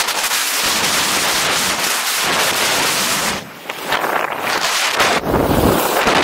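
Skis sliding and scraping over a snow piste with a steady hiss, mixed with wind buffeting the camera microphone. The hiss drops briefly about three and a half seconds in, and a low rumble of wind comes in near the end.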